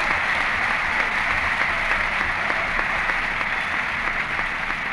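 Audience applauding steadily, a dense clatter of many hands that eases slightly near the end.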